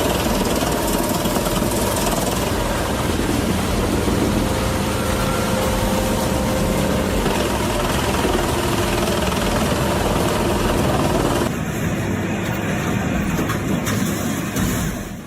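Pezzolato PTH 1000 industrial wood chipper, driven by a Scania DC16 V8 diesel, running under load: a loud, dense grinding of the chipping drum over the engine's hum. The sound changes about eleven seconds in and falls away sharply at the very end.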